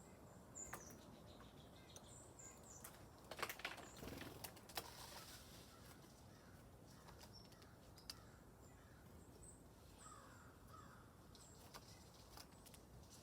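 Wild songbirds calling faintly with short, high chirps, with a louder cluster of sharp clicks and a harsh, rough call about three and a half to five seconds in.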